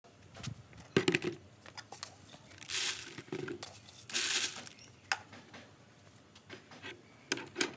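Handfuls of dry grain poured into an empty plastic bucket, hissing and pattering onto the bottom in two short bursts. Scattered sharp clicks and knocks come between them.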